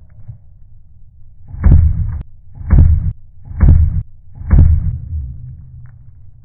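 A Redcat Dukono Pro RC monster truck tumbling and hitting the ground, heard slowed down in slow-motion playback: four deep, drawn-out thuds about a second apart.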